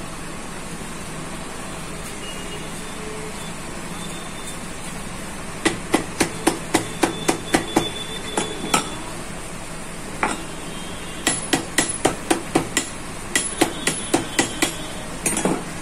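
Sharp metal-on-metal taps as a screwdriver is worked against the end plate of a Scorpio's AC blower motor to free the housing's locking tabs. They come in three quick runs of about four or five taps a second, with short pauses between.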